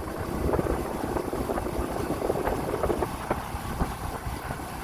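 A vehicle's engine running on the move, with low rumbling road and wind noise.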